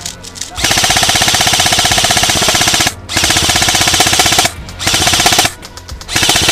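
G&G Raider 2.0 airsoft electric rifle firing full-auto in four bursts: a long one of about two seconds starting half a second in, a second of about a second and a half, a short one, and a fourth running on at the end.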